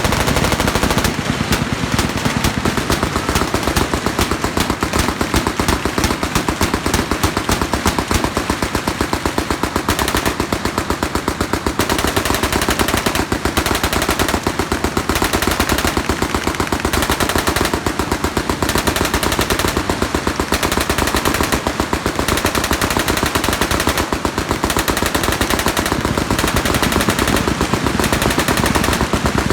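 Machine guns firing in dense, unbroken automatic fire, the shots overlapping into a continuous barrage.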